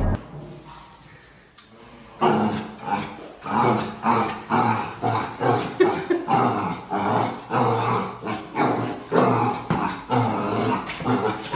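Puppy barking repeatedly at its own reflection in a mirror: short sharp barks about two a second, starting about two seconds in.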